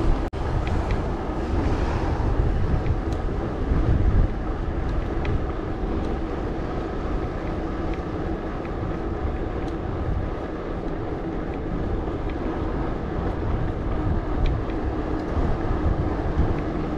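Riding noise of a mountain bike in motion: wind buffeting the microphone and the tyres rolling over the path in a steady low rumble, with scattered small clicks and rattles from the bike.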